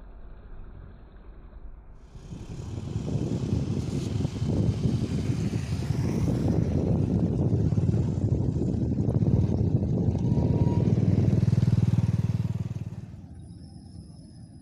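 A motor vehicle running, its engine and road noise building up about two seconds in, holding steady, then dropping away near the end.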